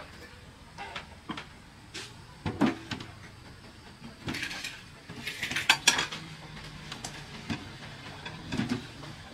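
Dishes and kitchen utensils being handled: irregular knocks and clatters, with the loudest run of clinks about two-thirds of the way through.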